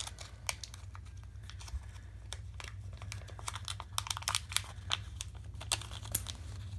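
Irregular light clicks and rustling from hands handling a padlock, small metal shims and tools, over a steady low hum.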